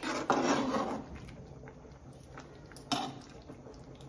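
Steel ladle stirring thick rice pudding in an aluminium pot, scraping and clinking against the pot, with a sharper clink about three seconds in.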